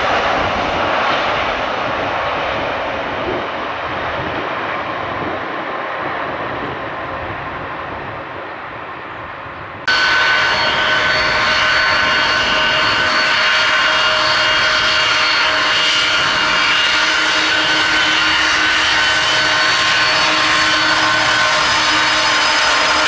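Jet airliner engines: a broad roar that slowly fades, then about ten seconds in an abrupt switch to another jet's engines, louder and steady, with a high whine over the roar.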